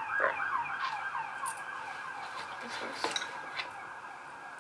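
A siren with fast falling sweeps, about four a second, fading away during the first three seconds. A few light clicks of handling come through it.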